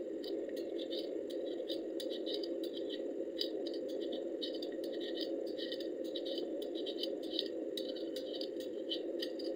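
Metal hand peeler scraping the skin off a potato: short, irregular scratchy strokes, several a second, over a steady low background hum.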